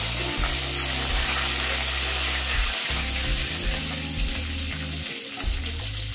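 Tempering in hot oil in a kadai: fresh curry leaves, mustard seeds, urad dal and a dried red chilli sizzling with a steady hiss while a spatula stirs them.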